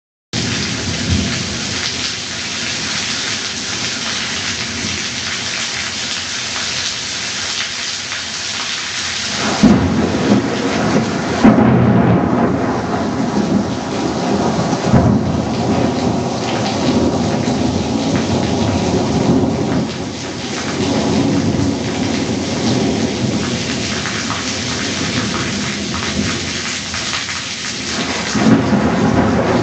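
Thunderstorm with heavy rain pouring steadily and rolling thunder. A loud rumble of thunder breaks in about ten seconds in and rolls on with several peaks, and another swells up near the end.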